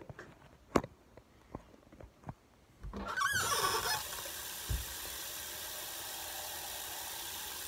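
A few light handling clicks, then a kitchen faucet is opened about three seconds in with a brief wavering squeal, and water runs steadily from the tap.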